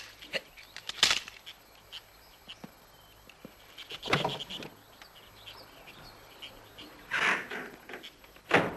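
Handling noise of guns being put away in a wooden cabinet: a sharp knock about a second in, short rustling scrapes around the middle and again later, and a loud knock near the end, with light clicks between.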